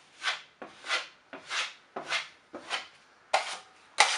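Steel drywall taping knife scraping joint compound in short, even strokes, about seven in four seconds, squeezing the mud out from under paper tape. The last strokes are the loudest.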